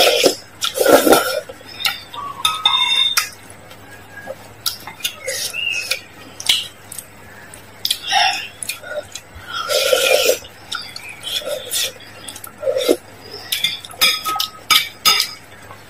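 Close-miked eating: noodles being slurped and chewed in short noisy bursts, with wooden chopsticks repeatedly clicking against a glass bowl.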